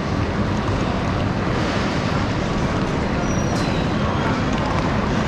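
Steady rumbling background of a busy railway station platform hall, with faint clicks of footsteps and rolling suitcases.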